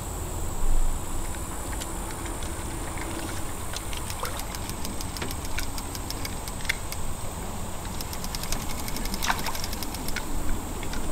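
Steady low rumble under a high, steady insect drone, with faint small clicks becoming more frequent in the last few seconds.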